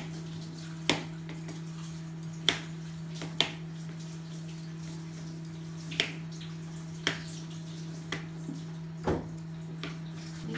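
A small kitchen knife peeling a potato over a plastic cutting board: irregular sharp clicks and taps, about seven over ten seconds, over a steady low hum.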